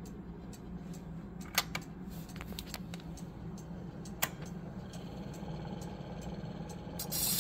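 Spring-driven turntable of a Victrola Credenza gramophone spinning a shellac 78 rpm record, with a steady low hum, light regular ticking and two sharp clicks. Near the end the reproducer's needle is set onto the record and the hiss of the record's surface noise begins.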